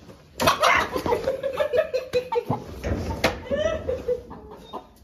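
Domestic hens clucking and squawking in a run of short pitched calls, with a few sharp knocks and thuds among them.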